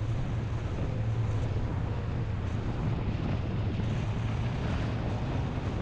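A vehicle being driven on a paved road: a steady low engine and road drone with a hiss of wind.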